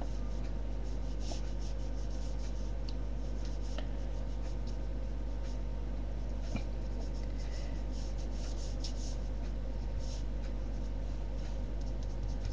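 A pen drawing on paper: many short, scratchy strokes, over a steady low hum.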